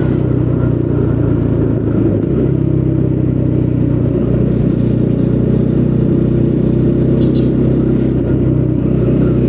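Triumph Speed 400's single-cylinder engine heard through its original exhaust, running steadily while riding. There is a brief change in the engine note about two seconds in.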